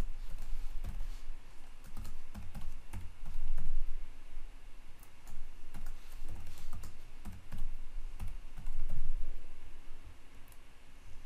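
Typing on a computer keyboard, a quick irregular run of keystrokes: a password typed in and then typed again to confirm it.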